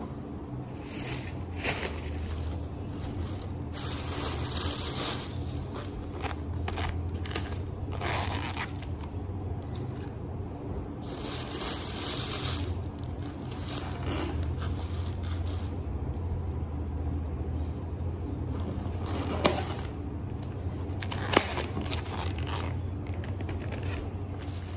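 Thin plastic carrier bag rustling and crinkling in irregular bursts as takeaway food packets are handled and pulled out, with a few sharp knocks, the loudest two in the second half, over a steady low hum.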